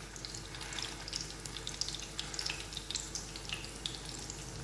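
Chicken kababs shallow-frying in hot oil in a flat pan: a steady sizzle dotted with many small, quick crackles of the oil.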